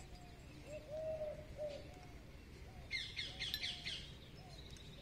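Birds calling: a short arching call repeated every half second or so throughout, with a burst of rapid high chirps about three seconds in.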